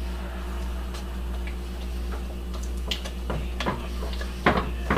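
Wooden spoon stirring thick melting chocolate in a cast-iron pot, knocking against the pot's side a handful of times in the second half, over a steady low hum.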